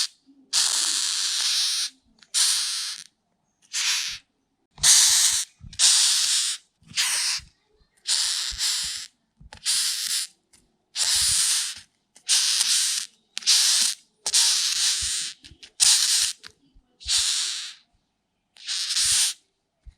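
Rhinoceros beetle giving a long run of short, raspy hisses, roughly one a second, each well under a second to about a second long, with brief silences between them and a few faint low knocks.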